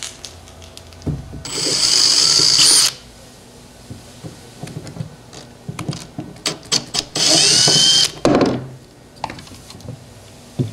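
Cordless drill whining in two short runs, about a second each, as it backs out screws holding plastic trim strips. Light clicks and knocks of handling come between the runs.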